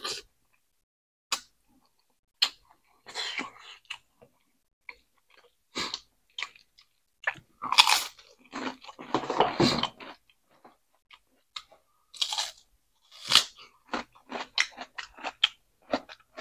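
Close-mic mouth sounds of eating fried mullet fish: irregular crunches and wet chews with short pauses between them, the loudest bites about halfway through.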